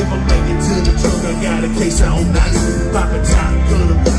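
A live band playing loud amplified music through a PA, with a singer's voice over heavy bass and a steady drum beat, heard from within the audience.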